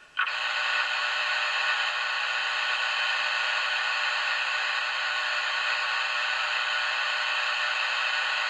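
CB radio receiver static: a steady hiss through the speaker that switches on abruptly about a quarter second in and holds unchanged, with no voice on it.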